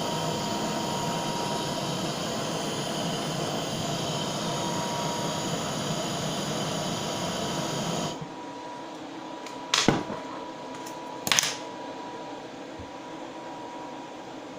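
Butane blowtorch running with a steady hiss, melting the surface of a solder ingot to smooth out deformations; it cuts off suddenly about eight seconds in. Two sharp knocks follow, about a second and a half apart.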